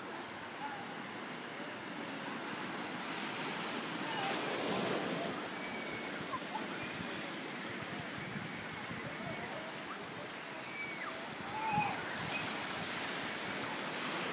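Ocean surf washing onto a beach, a steady rush that swells twice, about a third of the way in and again near the end.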